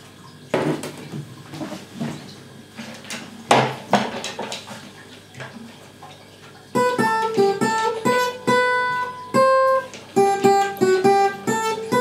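Knocks and rustling as an acoustic guitar is picked up and settled for playing. About seven seconds in, it starts being strummed in chords, a rhythmic intro.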